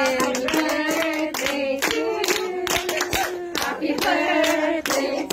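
A small group singing together with held notes while clapping along, about two or three claps a second.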